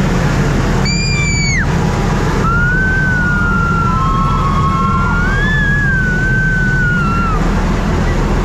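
Steady low rumble of a running vehicle with a high horn-like tone sounding over it: a short blast about a second in, then a long blast whose pitch wavers slowly, ending near the end.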